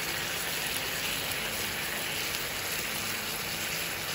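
Chicken pieces sizzling in teriyaki sauce in a nonstick frying pan, a steady hiss as the sauce cooks down and soaks into the meat.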